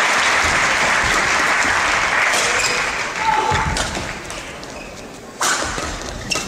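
Arena crowd applauding and cheering, fading away over the first three seconds. Then sharp cracks of badminton rackets striking the shuttlecock in a rally, the loudest a little past the middle.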